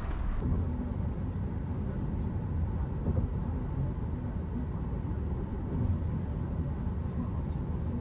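Steady low rumbling noise.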